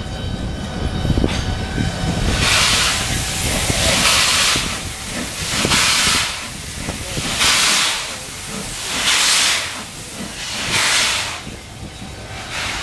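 B1A steam locomotive's exhaust chuffing slowly at low speed: about seven hissing beats of steam, roughly one every second and a half, starting about two seconds in, over the low rumble of the engine rolling on the rails.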